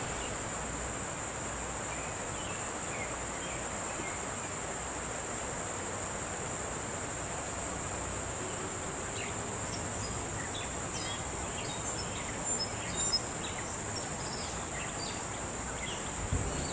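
Steady, high-pitched drone of a summer insect chorus, unbroken throughout. A few short faint chirps come in over it in the second half, with two brief louder sounds a little past the middle.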